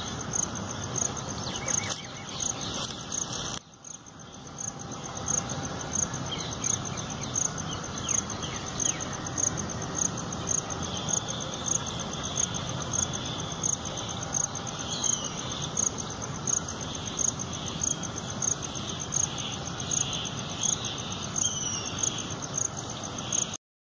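An insect chirping in a steady, even rhythm, several high chirps a second, over outdoor background hiss, with a few faint bird calls from about halfway through. All sound cuts off just before the end.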